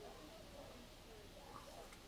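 Near silence, with only faint background sound.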